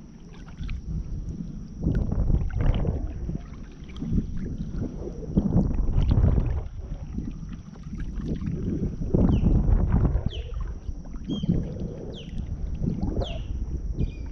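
Kayak being paddled: paddle strokes swishing through the water in a rhythm of about one every one to two seconds, with low wind rumble on the microphone.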